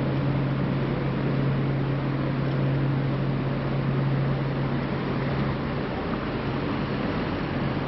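Steady road traffic noise from a busy multi-lane street, with a low steady hum over it that fades away about six seconds in.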